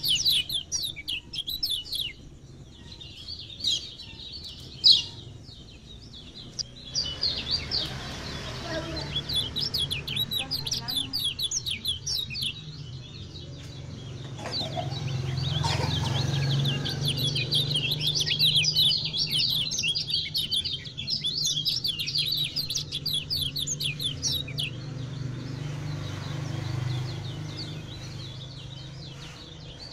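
Lemon-bellied white-eyes (kecial kuning) singing: fast runs of high-pitched twittering chirps, several birds overlapping, in a dense chorus. A low hum runs underneath through the middle part.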